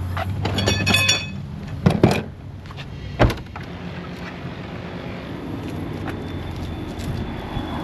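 A minivan's power liftgate motor running, with a quick run of high warning beeps, then two heavy thunks about two and three seconds in as the car's doors and liftgate shut. After that there is a steady low background hum.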